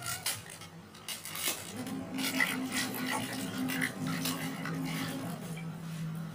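Wet laundry scrubbed by hand in a basin of water: irregular rubbing and splashing strokes. A low steady tone hums underneath and drops in pitch about four seconds in.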